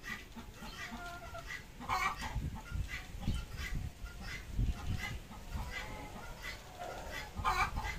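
Desi hen clucking in a run of short calls, a louder call about two seconds in and another near the end, over a low rumble.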